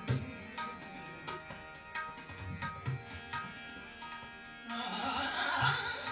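Tabla playing: spaced sharp strokes on the treble drum ring out at a steady pitch, with deep strokes on the bass drum, over a held melodic accompaniment. About two-thirds of the way through, the sound thickens and grows louder.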